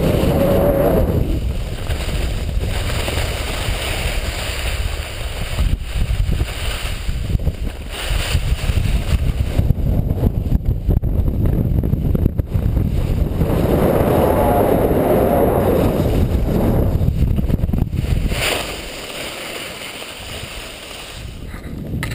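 Wind buffeting the microphone of a pole-mounted action camera while skiing downhill, with skis sliding over the snow. The rushing noise gusts up and down, then drops to a lower level about three-quarters of the way through.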